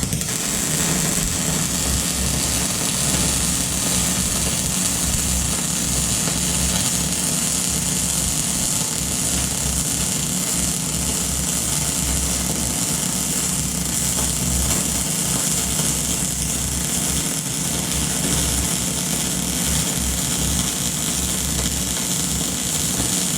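Electric arc welder laying one long continuous bead on a steel bracket: a steady crackling sizzle over a low electrical hum, starting abruptly.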